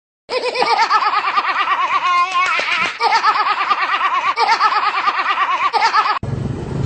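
High-pitched, rapid laughter, pulsing several times a second. About six seconds in it cuts off abruptly to a low, steady rumble.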